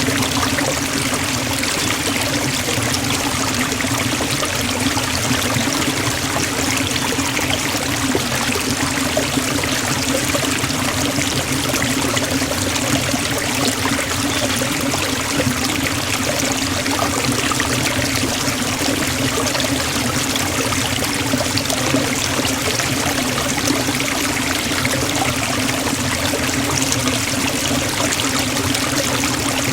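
Waterfall pouring into a pool, a steady even rush of falling water with a low hum underneath.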